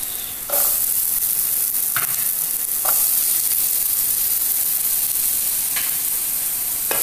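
Diced potatoes sizzling in hot mustard oil in a frying pan, the sizzle getting louder about half a second in and again near three seconds as more potato pieces go into the oil.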